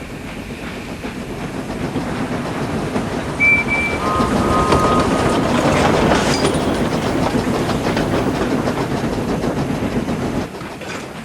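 Train running on rails with a clickety-clack, growing steadily louder and then dropping away sharply near the end. A few short high-pitched tones sound about three and a half to five seconds in.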